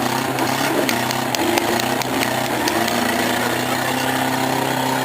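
Engines of small front-wheel-drive V6 demolition derby cars running and revving together, with several sharp knocks of cars hitting each other in the first half.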